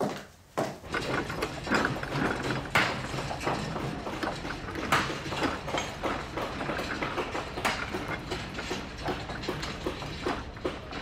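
Two high-heel footsteps on a wooden floor, then from about a second in a busy, continuous clatter of hand tools working through broken bricks: irregular knocks and clinks of picks and shovels in rubble, with a few louder hits.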